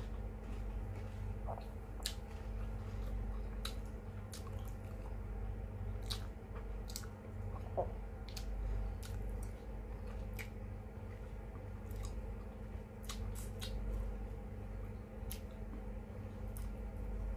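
Mouth sounds of eating paksiw na isda (fish stewed in vinegar): wet chewing and lip smacks heard as scattered short clicks, over a steady low hum.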